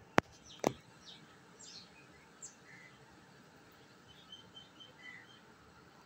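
Faint, short high parrot chirps, with a quick run of about six short peeps around four seconds in. Two sharp clicks in the first second are the loudest sounds.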